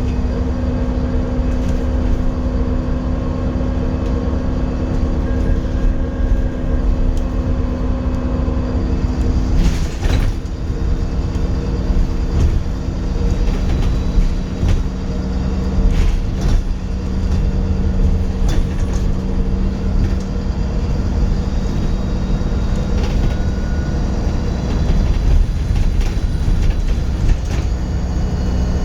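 Dennis Trident 2 double-decker bus's diesel engine running steadily, with a thin, high turbo whistle over the low engine drone. The engine note shifts about a third of the way in, and a few sharp knocks or rattles come through.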